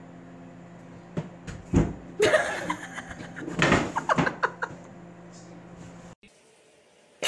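A thump about two seconds in, then loud, wavering cries from a person's voice, over a steady low hum that cuts off suddenly near the end.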